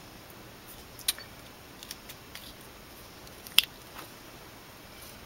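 Small metallic clicks of a Smith & Wesson automatic folding knife being handled and worked, with one sharp snap about three and a half seconds in, as of the blade springing open or locking.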